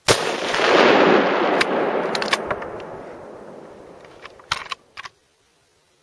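A single hunting-rifle shot at a roebuck: one sharp crack whose report rolls away and fades over about five seconds. Several sharp clicks come through the fading echo, and the sound cuts off abruptly near the end.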